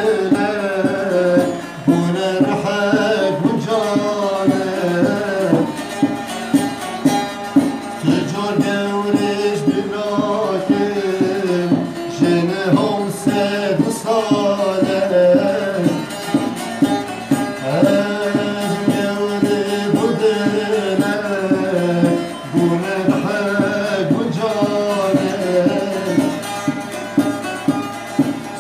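Bağlama (saz) strummed rapidly with a plectrum, with a man singing an ornamented Kurdish folk melody over it.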